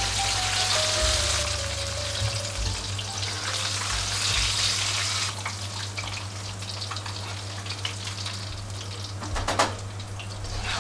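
Food deep-frying in hot oil, a steady sizzle that is strongest at first and then eases, with a couple of sharp clicks near the end. Background music plays softly underneath.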